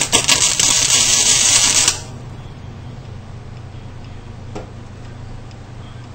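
Welding arc crackling for about two seconds while a screw hole in a car floor pan is plug-welded, then cutting off suddenly. A steady low hum carries on beneath it, and a single faint click comes later.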